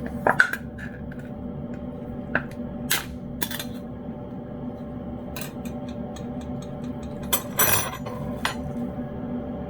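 A senior cat eating wet pâté cat food from a dish: irregular short smacking and clicking mouth noises, with knocks against the dish. The longest, loudest burst comes a little before the end.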